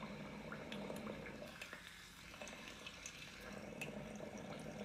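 Faint bubbling and small scattered ticks of liquid in a wine glass as chopsticks stir centipedes steeped in it, over a low steady hum.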